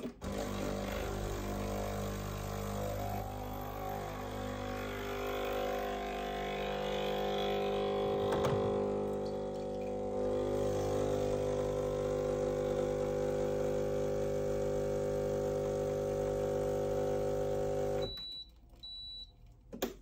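Breville (Sage) Barista Express's vibratory pump running as it pulls an espresso shot: a steady pitched hum that cuts off suddenly about 18 seconds in, followed by two short high beeps. The shot ran too fast.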